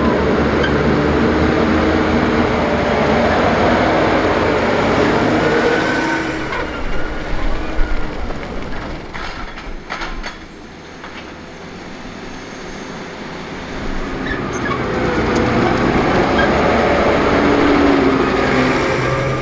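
Diesel engines of silage machinery running with tyre noise: a tractor towing a forage wagon runs close by, loud at first and again near the end as it passes. In the quieter middle stretch a JCB 434S wheel loader works the pit, with a few sharp clanks.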